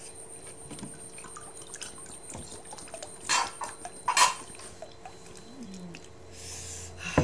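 Water being poured from a plastic jug into a small plastic cup, trickling and dripping, with two short, louder sounds about midway.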